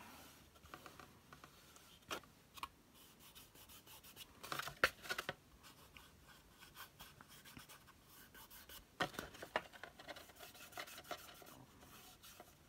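Lustre wax being rubbed onto the edges and seams of a compressed matte-board journal: faint scratchy rubbing strokes, with a few sharper scrapes around two, five and nine seconds in.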